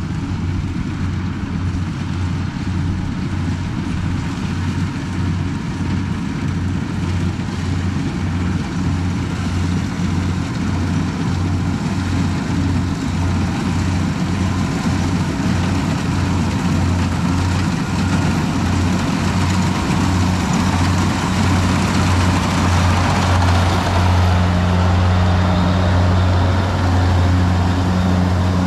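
A Kubota rice combine harvester's diesel engine running steadily as it cuts, growing louder as the machine draws close near the end.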